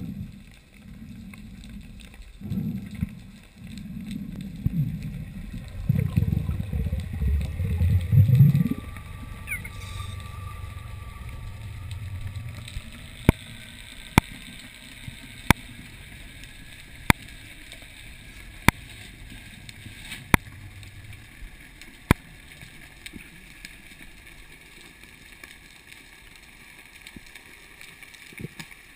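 Underwater water noise picked up by a freediver's camera: low rushing and gurgling over the first nine seconds, then a faint steady hiss. From about thirteen seconds a run of seven sharp clicks comes roughly every second and a half.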